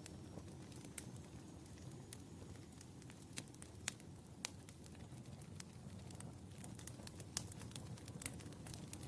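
Wood fire burning in a fireplace: a steady low rumble with scattered sharp crackles and pops, two of them louder, about four seconds in and past seven seconds.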